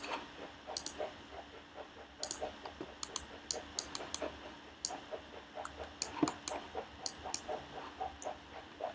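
Faint, irregular clicking of a computer mouse and keyboard, several clicks a second.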